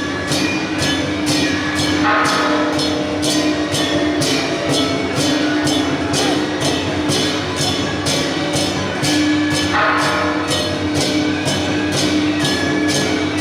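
Temple procession percussion: cymbals and drums struck in a steady, even beat of about three strikes a second, over a sustained steady tone.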